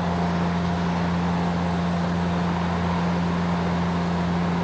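Steady mechanical hum with one constant low drone tone and an even noise haze, from a running machine.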